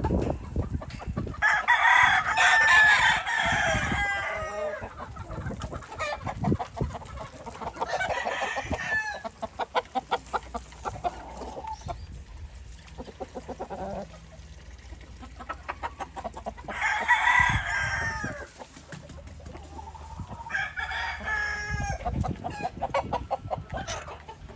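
Roosters crowing in turn, four crows of about two seconds each, with clucking in between.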